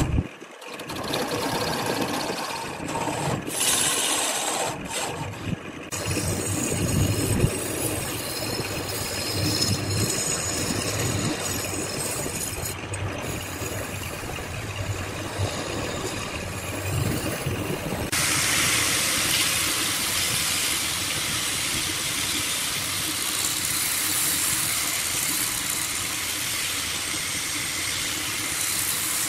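Wood lathe running while a hand-held turning chisel scrapes and cuts the outside of a spinning wooden vase, giving an uneven scraping noise over the motor. About 18 seconds in, a hand-held angle grinder fitted with a sanding disc starts sanding the turning wood, and a steady hiss takes over to the end.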